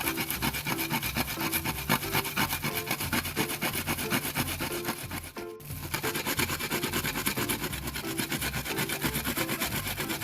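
A kencur (aromatic ginger) rhizome, rather dry, being grated by hand on a grater: quick repeated rasping strokes, with a brief pause about halfway through.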